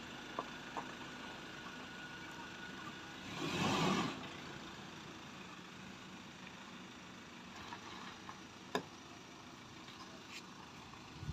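Ford Ranger pickup's engine running at low speed as it reverses out through a gate, with a brief louder swell about three and a half seconds in and a few small sharp clicks, one plainer than the rest later on.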